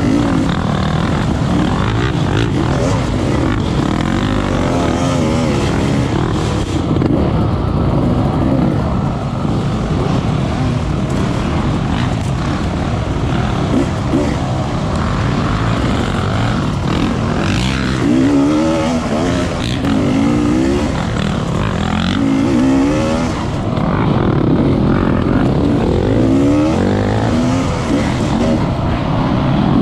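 Off-road motorcycle engine running hard, its pitch rising and falling again and again as the throttle is worked on and off.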